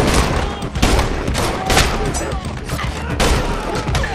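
Film gunfight: repeated gunshots from several guns at irregular intervals, a few per second at times, over a steady low rumble.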